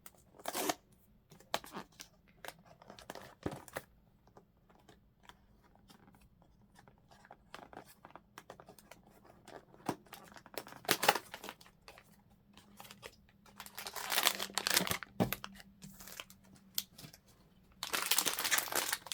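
Blind-box packaging being opened and handled: scattered taps and rustles, then louder stretches of tearing and crinkling about fourteen seconds in and again near the end.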